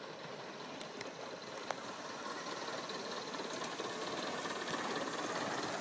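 Gauge 1 live steam model of an NSWGR C32 class 4-6-0 locomotive running on its track, its rapid exhaust beats and wheel noise growing steadily louder as it approaches.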